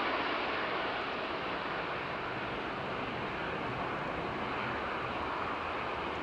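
Airbus A380's jet engines running at low thrust as it taxis, a steady distant whoosh that eases off slightly at first and then holds level.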